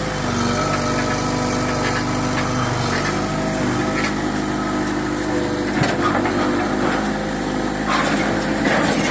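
An old Airman excavator's diesel engine running steadily, its pitch shifting as the hydraulic arm works. A few knocks of scrap iron are heard in the second half.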